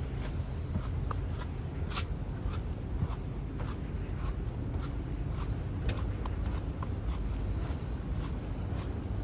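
Steady low rumble with irregular light clicks and scratchy scrapes, a few each second.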